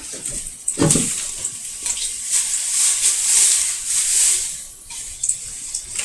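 Damp microfiber cloth wiping across wooden shelves, a scrubbing hiss that swells and fades in strokes, with a single knock about a second in.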